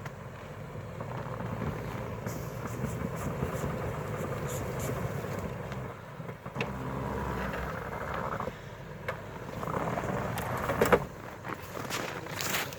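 An off-road vehicle's engine running steadily as it works on the slope, with a few sharp cracks near the end.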